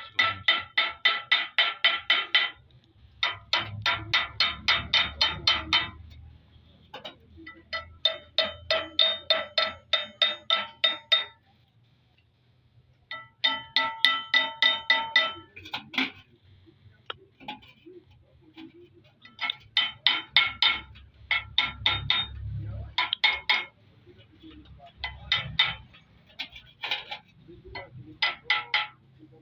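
Light hammer taps on a metal engine part, about six a second in runs of two to four seconds, each tap ringing.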